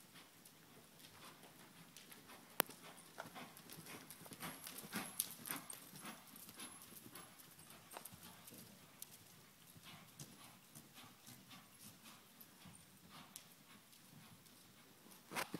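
Faint, irregular hoofbeats of a ridden horse cantering on soft dirt arena footing, growing louder for a couple of seconds near the middle, with one sharp click about two and a half seconds in.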